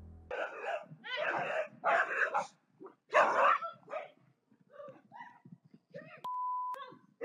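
A dog barking loudly several times in quick succession, then a person's smaller exclamations and a short steady beep, a censor bleep over a word.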